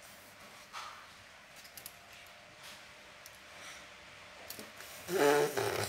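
Soft puffs of breath blowing through a soap-bubble wand, then near the end a short, loud pitched vocal sound.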